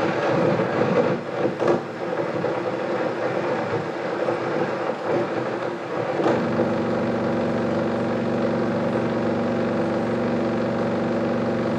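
Noisy soundtrack of a handmade 16mm film playing through the projector: a dense crackle with irregular clicks for about six seconds, then a steady droning hum.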